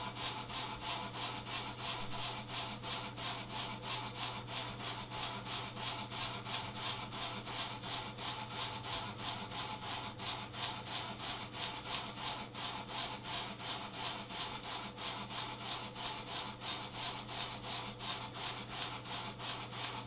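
Small motor-driven rotary switch chattering as its brushes make and break the 12-volt circuit through two microwave oven transformers in series. Because the motor is wired into the same circuit, it runs unevenly, giving a rhythmic pulsing about three times a second, with fine crackling on top and a steady low hum underneath.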